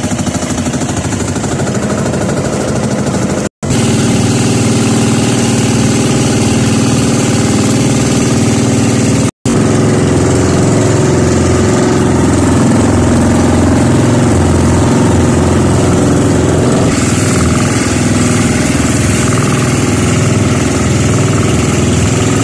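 Engine of a motorized outrigger boat running steadily under way, loud and even, with two brief dropouts in the sound.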